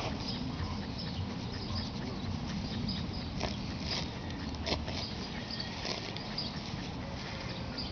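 Hand digger cutting into turf and soil, with a few sharp crunches of grit and roots in the middle of the stretch.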